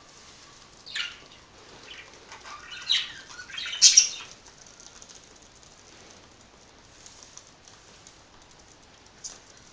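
Budgies fluttering their wings in short bursts: four brief flurries, the loudest about four seconds in and a last one near the end.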